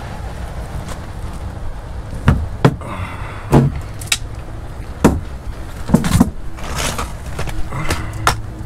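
About ten irregular knocks and clunks, a few of them sharp, over a steady low rumble.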